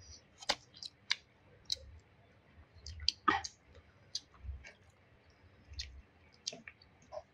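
Sparse, irregular light clicks and taps, a dozen or so spread unevenly over a faint low hum.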